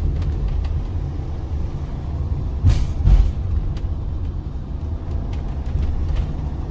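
Motorhome driving, heard from inside the cab: a steady low engine and road rumble, with a short hiss about two and a half seconds in and a low thump just after it.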